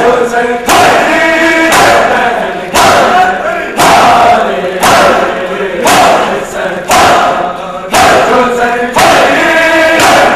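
A crowd of men chanting a Muharram mourning chant (noha) in unison, with loud chest-beating (matam) strikes falling together about once a second.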